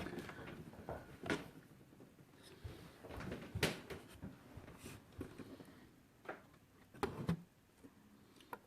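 Scattered light clicks and knocks of small wooden parts being handled and set against each other, about five in all, with faint rustling between them.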